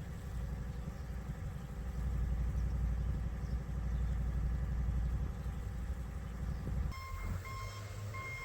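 A vehicle engine running with a steady low rumble; near the end the sound cuts to repeated short high-pitched beeping.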